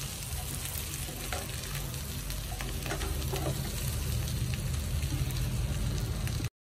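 Chicken pieces in spiced oil sizzling in a frying pan while a metal spoon stirs them, with a few light scrapes and clicks. The sound cuts off abruptly near the end.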